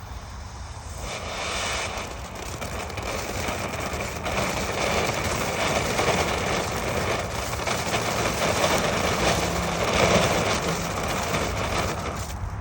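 Ground fountain firework burning, a steady hissing rush of sparks that starts about a second in and stops suddenly near the end.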